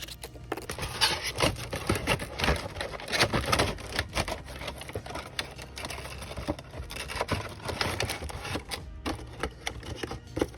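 Rapid, irregular clicking and clattering of plastic being handled close to the microphone: figure parts and packaging being worked by hand.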